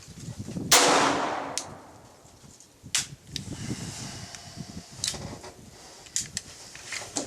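A .22 LR pistol shot from a Tactical Solutions conversion kit on a Glock frame, ringing off for about a second, followed by several fainter sharp cracks.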